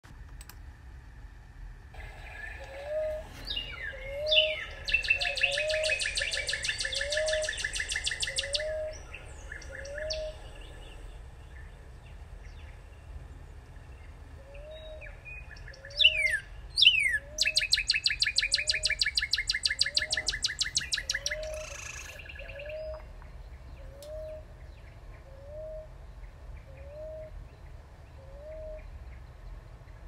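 Northern cardinal singing: two song phrases, about four seconds in and about halfway through, each opening with a couple of loud, steep down-slurred whistles and running into a long, very rapid trill that falls slowly in pitch. A softer, low note repeats about once a second underneath.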